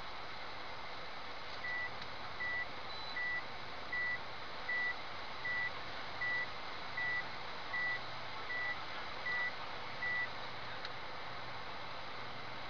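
An electronic beeper sounding twelve short, evenly spaced beeps of one high pitch, a little more than one a second, starting about two seconds in and stopping near the end, over a steady hiss.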